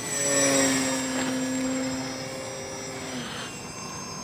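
Homemade RC plane's motor and propeller whining steadily in flight, loudest about half a second in and fading as it flies away, the lowest tone dying out after about three seconds.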